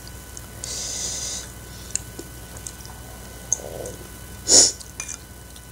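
Eating sounds of spicy noodle soup: a slurp of broth from a spoon about a second in, light clicks of metal utensils on the bowl, and a short sharp sniff about four and a half seconds in, the loudest sound.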